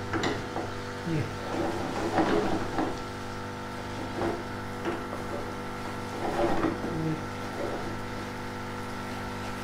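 A wooden spoon stirring boiled urad (mash) daal through masala in a metal frying pan, with a few light clicks of the spoon against the pan, over a steady background drone.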